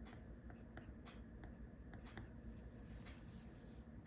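Coloured pencil shading on paper: faint, short scratchy strokes at an irregular pace.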